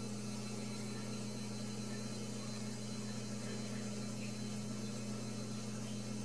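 Steady low electrical hum with an even hiss over it: room tone, with no distinct events.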